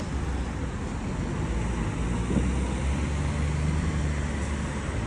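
Outdoor street noise: road traffic with a steady low rumble.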